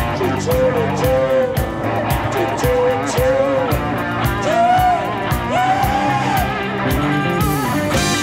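Live rock band playing: electric guitars and drums keep a steady beat of about two hits a second under held chords. Over them, short melodic phrases slide up and down in pitch.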